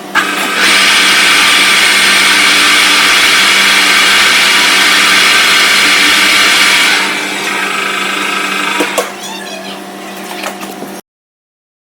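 Metal lathe running with a steady hum; about half a second in, a loud harsh cutting noise starts as the tool works the spinning piece and lasts about six seconds, then drops back to the machine hum with a few clicks. The sound cuts off abruptly near the end.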